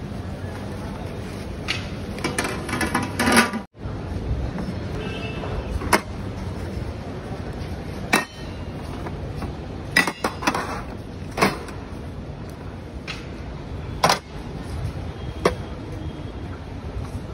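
Stainless-steel tins and lids clinking and knocking against a steel tray: about seven short, sharp metal clinks a second or two apart, over a steady hum of street noise.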